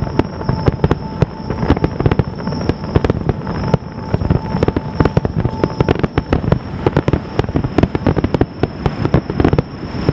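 A fireworks finale barrage heard from across the water: a dense, continuous rapid string of shell bursts and crackling reports, many per second, with no break.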